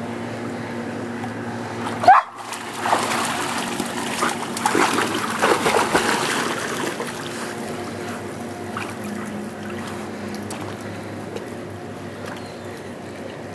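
Golden retriever paddling in a swimming pool: water splashing and churning around it, busiest from about three to seven seconds in, then easing to softer lapping. A brief sharp sound about two seconds in is the loudest moment, with a steady low hum underneath.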